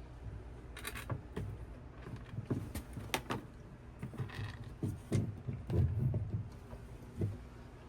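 Scattered light knocks and clicks over a low rumble of handling noise, from objects being moved and handled.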